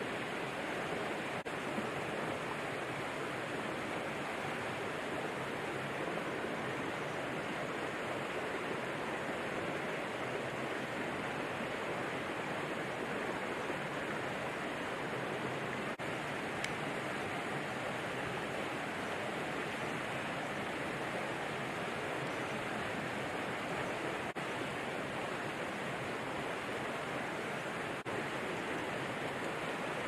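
Mountain stream rushing steadily, with a few faint clicks.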